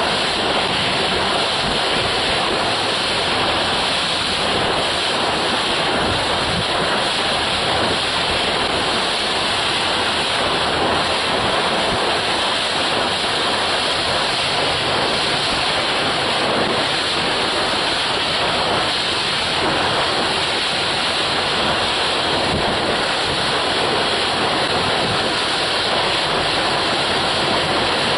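A steady, unbroken rush of wind and sea water, with wind buffeting the microphone.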